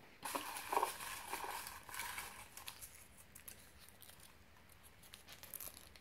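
Folded paper lots rustling and clicking against a plastic tub as fingers rummage through them and draw one out, then the slip being unfolded. The rustling is busiest in the first few seconds and fainter after.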